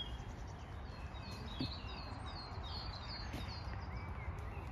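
Small songbirds chirping in a run of short, high notes that come thickest in the middle, over a steady low rumble of outdoor background noise.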